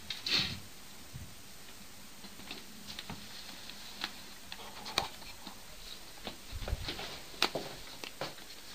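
Scattered light taps and clicks of household knocking heard through the building, with sharper knocks about five and seven and a half seconds in and a few dull low thuds just before the second.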